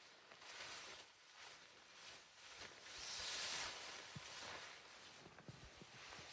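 Rustling noise that swells and fades, loudest about three seconds in, with a few faint soft knocks.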